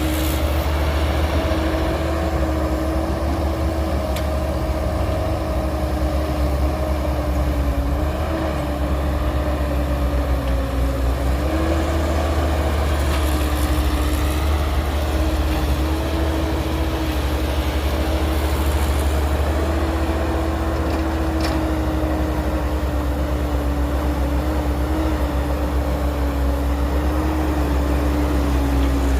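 Heavy diesel engine of earthmoving machinery running steadily: a deep rumble with a steady whine over it that dips slightly in pitch now and then.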